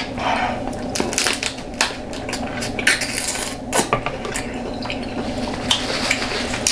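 Irregular sharp clicks and clatter of king crab shells and utensils against a platter while a curry seafood boil is eaten by hand.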